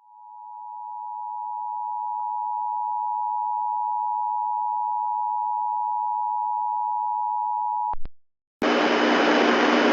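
Emergency Alert System attention signal: a steady two-note tone that swells in over the first couple of seconds and holds for about eight seconds, then cuts off. Two quick clicks follow, a brief silence, and then a loud hiss of static with a steady hum in it starts near the end.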